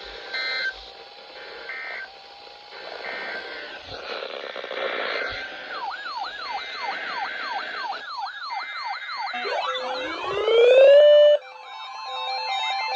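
Electronic alert alarms from weather alert radios: a few short beeps, then a fast warbling siren tone from about halfway in, and a loud rising sweep near the end, after which several steady and pulsing alert tones sound together.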